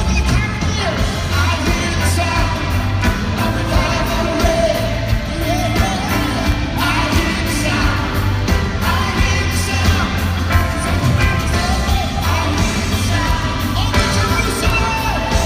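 Live worship band playing and singing through a large PA: vocals over guitars and keyboard, with a heavy bass line.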